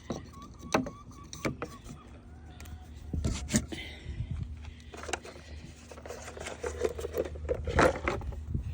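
Scattered knocks, clicks and rattles, like things being handled or bumped, over a low steady hum; the loudest knock comes near the end.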